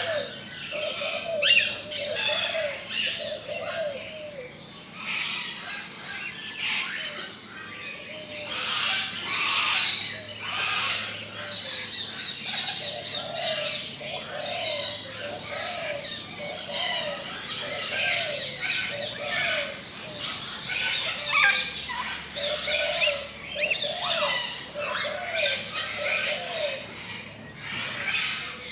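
Many birds chirping and twittering together, with a lower call repeated about once a second underneath.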